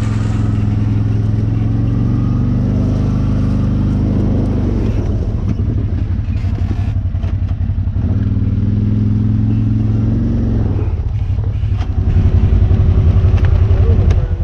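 ATV engine running under way, its pitch shifting as the speed changes several times, and louder for a couple of seconds near the end.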